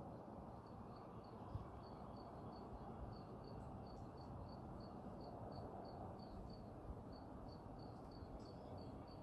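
Faint insect chirping: short, high chirps repeating evenly at about three a second, over a low steady background hiss.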